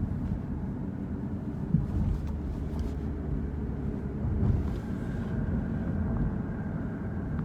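Steady low rumble of a car driving, a continuous mix of engine and road noise. It cuts off suddenly at the very end.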